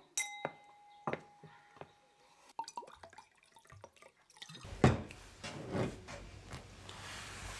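A string of sharp taps or drips, one setting off a brief ringing tone, then louder knocks and rustling about four and a half seconds in.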